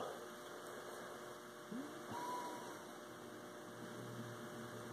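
Faint steady electrical hum and room hiss, with a brief faint squeaky glide about two seconds in.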